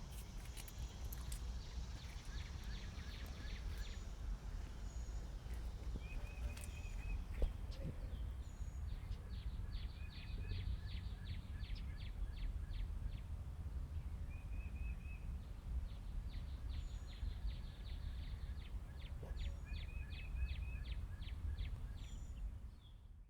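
Outdoor garden ambience with small birds calling: repeated short high trills and runs of rapid ticking notes, several times over, above a steady low rumble.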